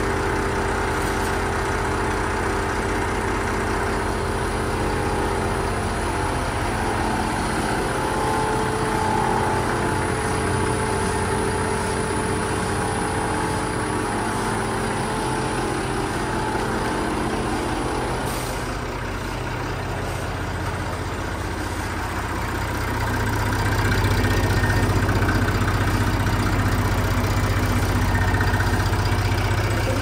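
Old Massey Ferguson tractor engine idling steadily, running again after repair. The low engine sound grows louder about two-thirds of the way through.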